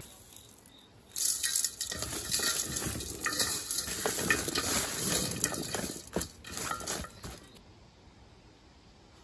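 Hands tossing cut radish pieces in a stainless steel bowl: the pieces clatter, clink and scrape against the metal. It starts about a second in and stops a little before the end.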